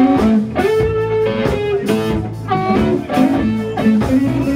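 Live blues band playing: amplified harmonica with held, bending notes over electric guitar and bass guitar.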